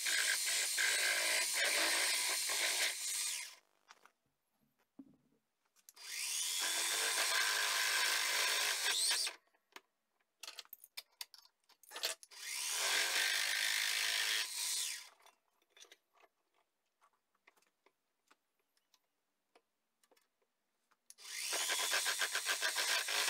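Bench drill press boring into a metal tube held in a machine vise, run in four bursts: each starts with a rising whine as the motor spins up and cuts off in between, leaving only small clicks. The last burst pulses rhythmically.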